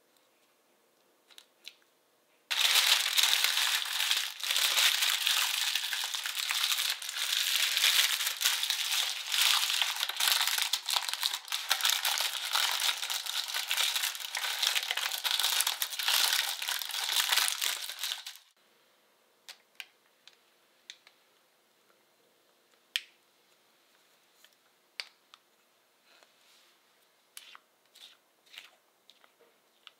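Baking parchment paper crinkling loudly as it is crumpled and pressed into a round cake tin to line it. The crinkling starts about two seconds in, runs for about sixteen seconds and stops suddenly, leaving only a few faint scattered ticks and taps.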